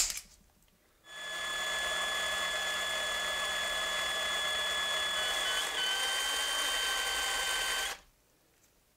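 A sharp snap of an automatic center punch on the rivet, then a cordless drill runs steadily for about seven seconds, drilling out the rivet of a diecast model car. Its whine drops slightly in pitch partway through and cuts off suddenly.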